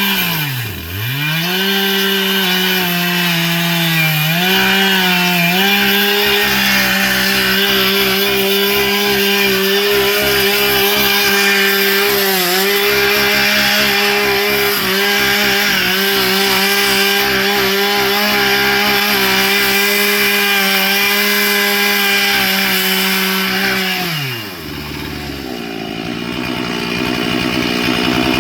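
Two-stroke chainsaw running at high revs, its pitch dipping sharply and recovering about a second in and again around four to five seconds, as when it bogs under load in wood. Near the end it drops to idle, then starts to rev back up.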